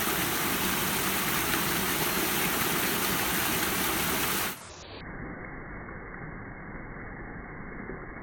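Waterfall and rain making a steady rushing noise. About halfway through it drops in level and turns muffled.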